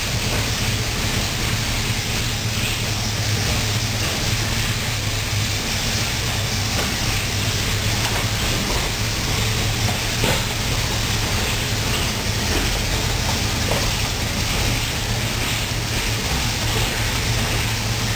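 The Maybach V12 petrol engine of a Panther tank running steadily at low revs as the tank creeps forward on its tracks, on its first drive after a full rebuild on the original engine block and internals.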